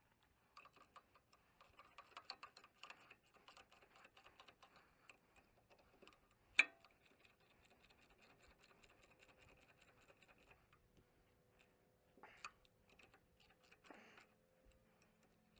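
Faint, quick metal clicking of a wrench working the gland bolts on a hydraulic cylinder, with one sharp clack about six and a half seconds in and a couple more near the end.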